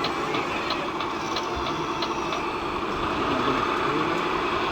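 A steady engine idling sound, with faint quick ticks in the first couple of seconds.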